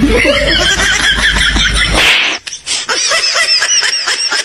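High-pitched laughter after a punchline. A wavering laugh runs over a low hum for about two seconds, then after a short noisy rush it turns into a rhythmic laugh of about four 'ha's a second.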